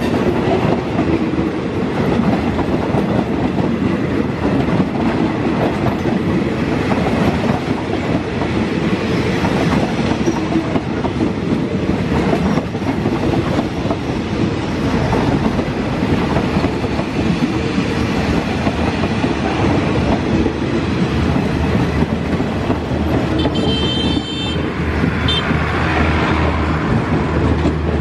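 Passenger coaches of a diesel-hauled express train rolling past at close range: a steady wheel rumble with clatter over the rail joints. A brief high squeal comes about three-quarters of the way through, and a steady low hum builds near the end.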